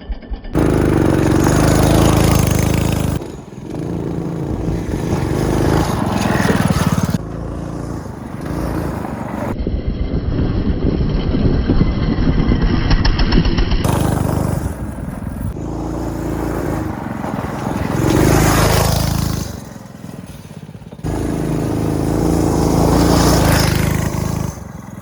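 Off-road buggy's 200cc Honda single-cylinder engine running and revving as the buggy is driven round a dirt track, with rushing noise over it. The sound changes abruptly every few seconds, as if cut between shots.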